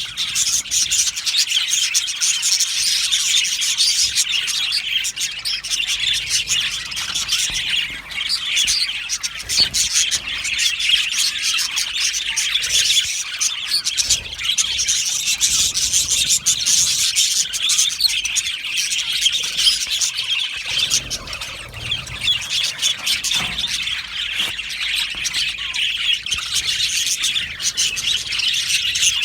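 A flock of budgerigars chirping and warbling continuously, many birds calling over one another.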